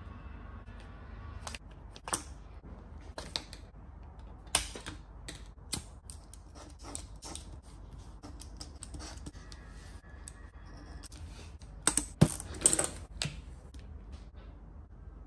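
Scattered small clicks and taps of hand tools and leather pieces being handled on a workbench cutting mat, with a short cluster of louder knocks and rustling about twelve seconds in.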